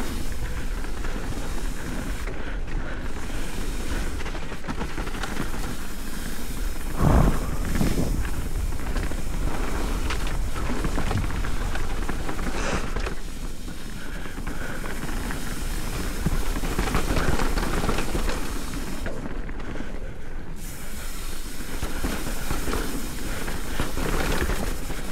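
Trek Slash 8 full-suspension mountain bike descending a loose gravel and dirt trail: tyres crunching over gravel and the bike rattling, under steady wind rush on a chin-mounted camera's microphone. One heavy thump about seven seconds in.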